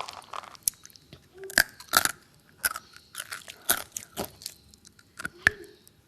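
A series of sharp crunches and cracks at irregular intervals, about a dozen in all, like something brittle being bitten or snapped.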